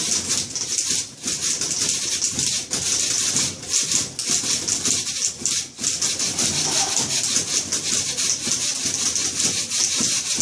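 Several typewriters played together as percussion instruments: a dense, continuous clatter of keystrokes.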